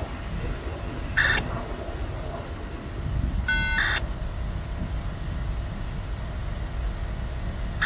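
Low steady rumble of a distant rail yard. Three short high-pitched sounds stand out: one about a second in, a brief beeping tone near the middle, and one at the end.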